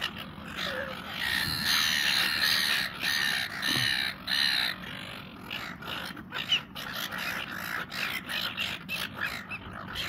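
A flock of seagulls squawking in overlapping harsh calls, loudest and busiest between about one and five seconds in.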